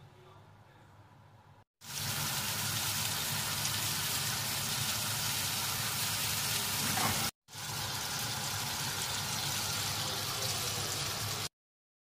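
Meat sizzling on a cast-iron griddle plate: a loud, steady hiss that starts about two seconds in, breaks off for an instant a little past halfway, resumes, and cuts off abruptly near the end.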